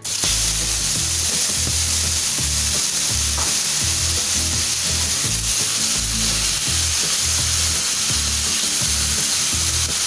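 Food frying in hot cooking oil in a kawali: a loud, steady sizzle.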